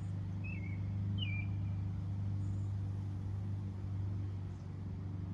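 Steady low hum of a running engine, with a few short, high bird-like chirps about a second in and again near the end.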